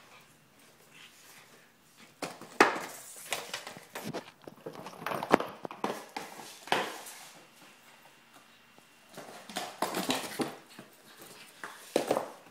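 A cardboard tissue box bumping and scraping across a hardwood floor as a pug puppy with its head inside it blunders about, with its claws clicking on the boards. The knocks and scrapes come in irregular flurries, then pause for a couple of seconds in the middle.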